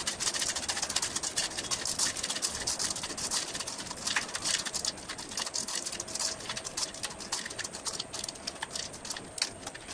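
Spoon tossing crispy fried noodles and shredded cabbage coated in sauce in a bowl: a dense, uneven run of light crunchy rustles and clicks as the dry noodles rub together and knock against the spoon and bowl.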